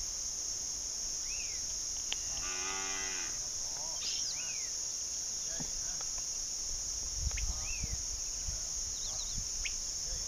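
A herd of white humped zebu-type cattle, one of them mooing once about two and a half seconds in, for about a second. A steady high drone and scattered short chirps run underneath.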